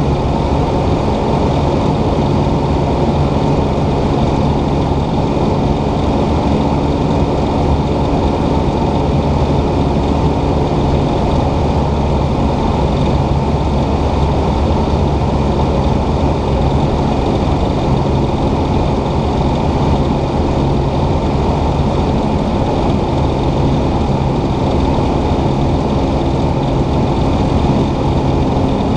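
Cessna 172's piston engine and propeller droning steadily, heard from inside the cabin.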